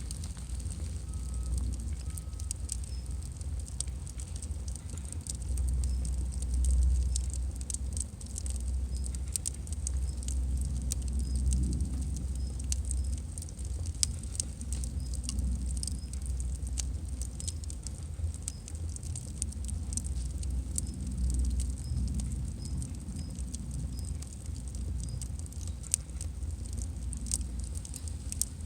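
Firewood burning, crackling with many small sharp pops over a steady low rumble.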